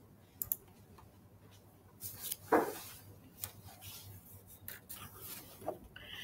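Faint small-room tone with scattered light clicks and ticks, and a brief louder sound about two and a half seconds in.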